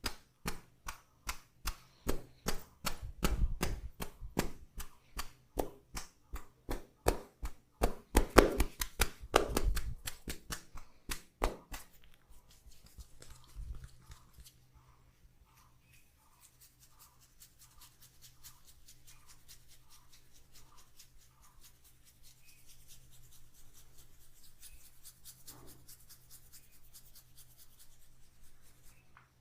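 Hands tapping and chopping in a massage: a fast, even run of sharp slaps that stops about twelve seconds in. Only faint, soft sounds follow.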